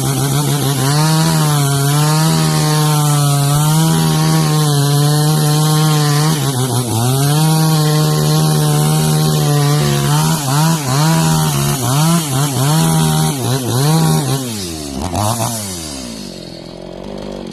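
Two-stroke chainsaw running at high revs while cutting mangosteen wood. About ten seconds in, the engine speed rises and dips in quick pulses, and near the end it falls away as the throttle is let off.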